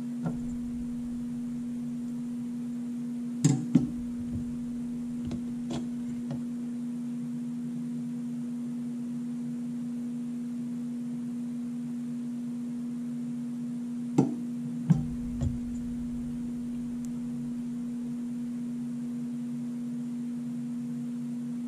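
A steady electrical hum, with a few light clicks and clinks from the DCT470 transmission's friction and steel clutch plates being handled, the loudest about three and a half seconds in and again near fourteen seconds.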